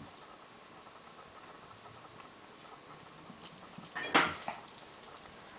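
Papillon puppy playing fetch: faint scattered ticks and pattering, then one short, sharp, loud noise about four seconds in as she runs back with her plush toy.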